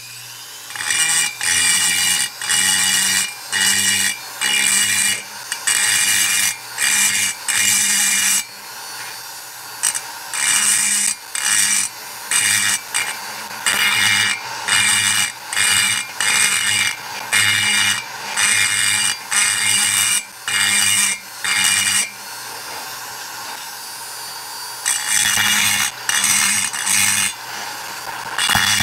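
A grinder running steadily while its bit cuts into the port of a 1972 Yamaha AT-2 two-stroke cylinder, widening the port, in short loud grinding passes about once a second. The grinding pauses for a few seconds late on while the motor keeps running.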